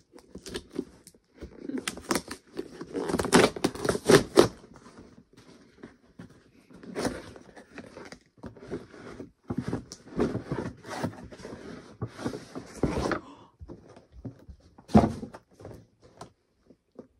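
A cardboard mailing box being torn open and handled: irregular tearing, scraping and rustling, loudest and densest in the first few seconds, then the crinkle and scrape of a boxed doll being slid out, with one sharp knock about fifteen seconds in.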